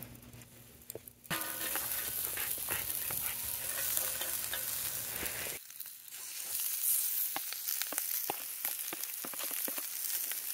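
Raw chicken pieces sizzling as they are laid one by one into a hot cast-iron grill pan with chopped garlic and ginger. The sizzle starts about a second in and is peppered with small pops.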